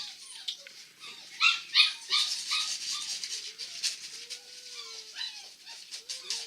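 Puppy whimpering and yipping: a quick run of short high squeaks, then a couple of longer drawn-out whines after the middle.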